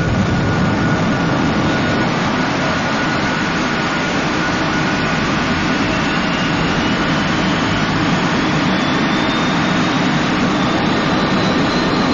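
Sound effect of the Zero X spacecraft's rocket engines firing: a steady, loud, jet-like roar. A faint high whine rises slowly in pitch through the second half.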